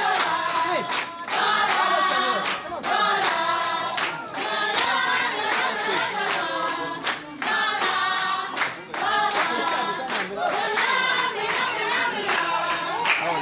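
A group of people singing together, unaccompanied, with rhythmic hand clapping.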